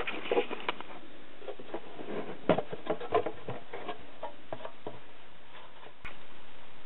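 Handling noise around a plastic snake tub lined with paper towel: light rustling and scattered small ticks and taps. A single sharp click comes about six seconds in.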